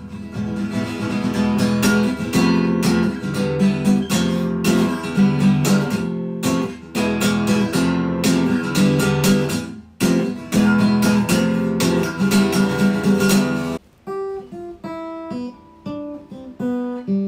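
Background music: strummed acoustic guitar chords, thinning to sparser picked single notes near the end.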